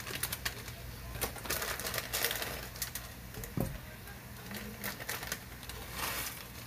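Plastic ramyeon packets crinkling and rustling in sharp, irregular crackles as they are handled and shaken out, over a steady low hum.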